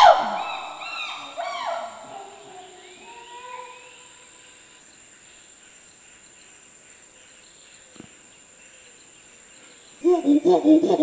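Chimpanzees calling loudly with rising-and-falling hoots and screams that fade away over the first few seconds. Then quiet rainforest with a steady high insect whine and a single click. About ten seconds in, another loud round of quick chimpanzee calls starts.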